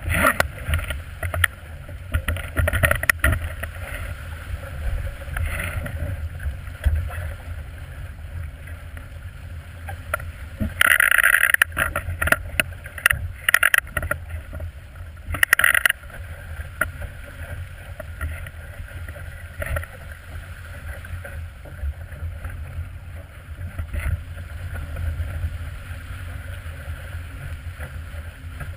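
Water rushing and slapping along the hull of a small plywood sailboat moving fast through chop, with wind buffeting the boat-mounted microphone as a steady low rumble. A few louder splashes come through, the biggest about halfway through.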